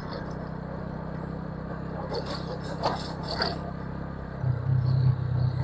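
Motorcycle engine running as the bike rides along, a steady low hum that grows louder about four and a half seconds in.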